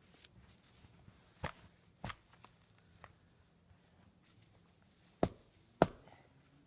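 Small axe chopping at dead conifer branches: five sharp strikes at uneven intervals, the two loudest close together near the end.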